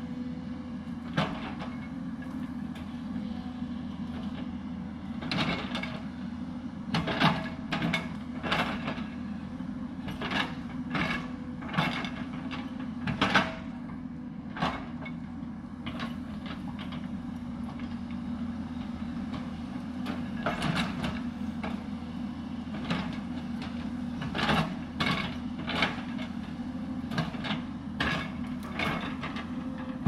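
Hyundai 220 crawler excavator's diesel engine running steadily while digging, with many short sharp clanks and knocks as the bucket bites into and scrapes the dry earth, coming in irregular clusters.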